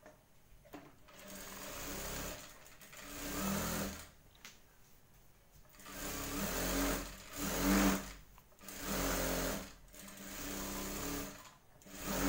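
Industrial lockstitch sewing machine stitching a seam through blouse fabric in a series of short runs, stopping and starting again several times with brief pauses between.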